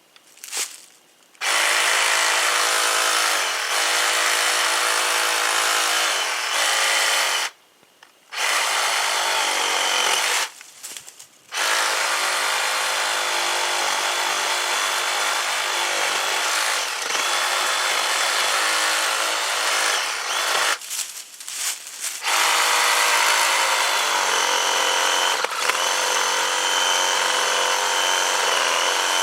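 Ryobi PCL515B 18V cordless reciprocating saw cutting through a tree limb. It runs in long stretches, starting about a second and a half in, and stops briefly three times as the trigger is let go.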